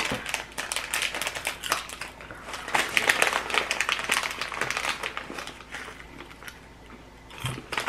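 Small shiny candy wrapper crinkling and crackling as it is torn open and handled, in many quick irregular crackles that thin out about six seconds in.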